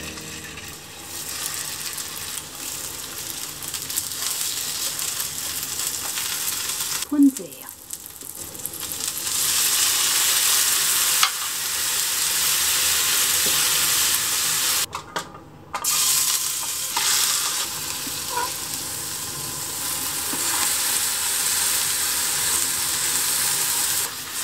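Food sizzling in hot oil in a frying pan: lotus-root slices topped with chicken mince and wrapped in nori frying until browned, then king oyster mushroom slices frying in a glaze near the end. The sizzle grows louder about nine seconds in and breaks off briefly twice.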